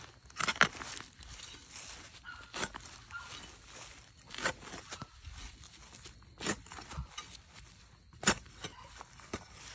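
Footsteps through grass and dry leaves, a step about every two seconds. The loudest steps come just after the start and about eight seconds in.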